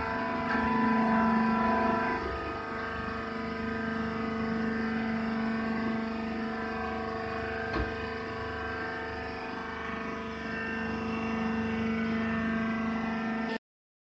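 Hydraulic press baler's power unit running with a steady hum, with a single sharp click about eight seconds in. The sound cuts out briefly near the end.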